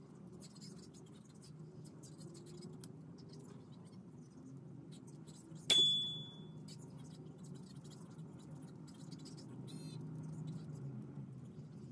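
Small plastic toy parts from a Kinder Surprise egg handled and pressed together, with faint scratching and light clicks. About halfway through a single bright chime rings out, the loudest sound, and fades within half a second; near the end comes a quick run of small ticks.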